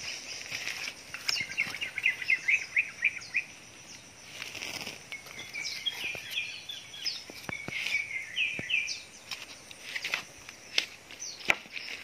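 Wild songbirds chirping in quick runs of short notes, about a second in and again from about four to nine seconds, with scattered sharp clicks throughout.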